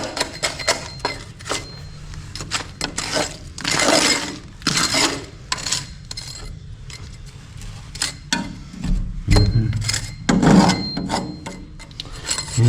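Hand scraping and picking at old, crumbling wall compound, with irregular scrapes and small pieces clicking and clinking as they break off and fall.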